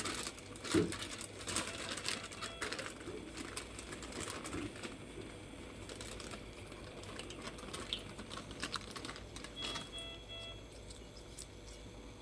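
Irregular light clicks and rustling, busiest in the first few seconds, with a brief faint tone about ten seconds in.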